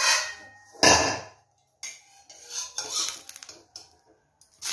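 Steel spatula scraping and knocking against a kadai as a pitha is pried up and turned over, with two loud scrapes in the first second and quieter, irregular scraping a couple of seconds later.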